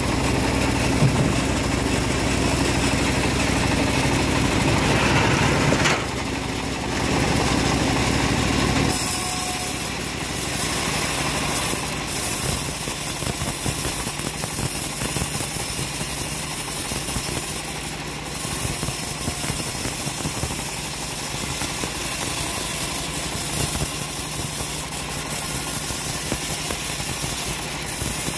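A homemade bandsaw mill runs with its blade ripping lengthwise through a log of hard jowar (johar) wood. It is a loud, steady mechanical din, and its tone changes about nine seconds in.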